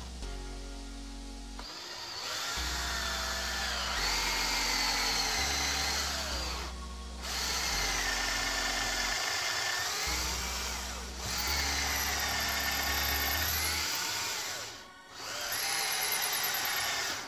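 Electric drill boring through a round wooden handle. Its motor whine sags and recovers as the bit loads, in about three runs with brief stops between them. Background music with a bass line plays underneath.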